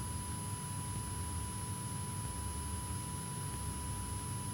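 Cessna 172 Skyhawk's four-cylinder piston engine and propeller droning steadily in cruise, heard as a muffled low rumble through the cockpit intercom, with a thin steady electrical whine on top.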